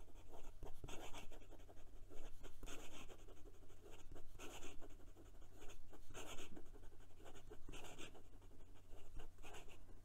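Fine steel nib of a HongDian 6016 fountain pen writing quick cursive on paper: a run of short, irregular scratches, one per stroke. This is the tooth and feedback of the nib on the page, with ink flowing freely.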